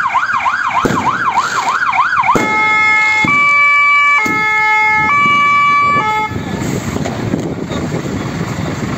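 Scania P360 fire engine's electronic siren: a fast rising-and-falling wail-yelp that switches about two seconds in to a two-tone high-low pattern, changing tone about once a second. The siren stops a little past halfway, leaving a steady rushing noise.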